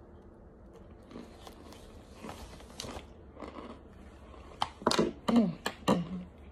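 Someone biting and chewing hard chunks of toasted crunch starch: quieter crackling crunches at first, then several loud, sharp crunches close together about five seconds in.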